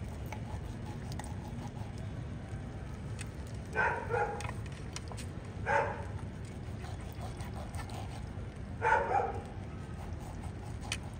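An animal calling in three short bouts, about four, six and nine seconds in, the first and last each a quick double call, over a steady low rumble.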